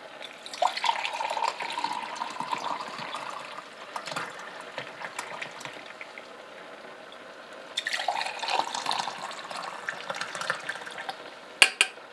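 Liquid poured from a steel bowl through a metal tea strainer into steel tumblers, in two spells of pouring. Two sharp knocks near the end.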